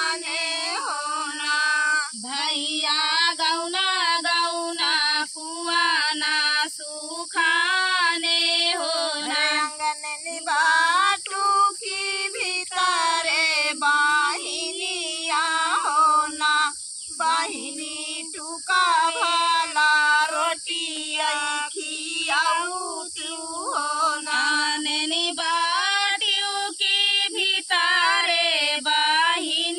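A woman singing a dehati folk paddy-transplanting song (dhaan ropai kajari geet) in long, sustained phrases, without instruments.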